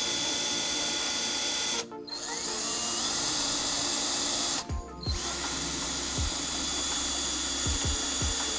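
Cordless drill boring out pilot holes in a motorcycle saddlebag lid. It runs in three bursts, each starting with a rising whine as the motor spins up, with short stops about two and about four and a half seconds in. A few low knocks come during the last run.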